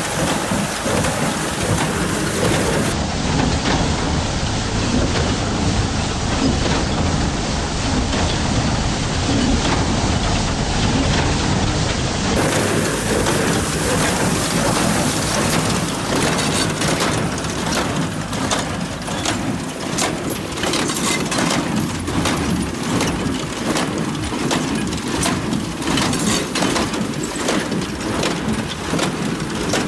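John Deere 5310 tractor running under load while pulling a New Holland square baler, a steady rumble with a heavy hiss. From about halfway in, a fast regular knocking comes through, the baler's plunger working.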